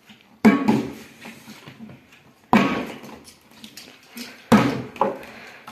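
Plastic water bottle being flipped and landing on a tabletop: three sharp thuds about two seconds apart.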